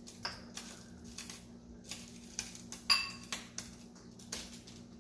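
Serving spoon scraping and tapping against a pot and a ceramic bowl as curry shrimp is spooned out, a string of short clinks and scrapes with one louder ringing clink about three seconds in.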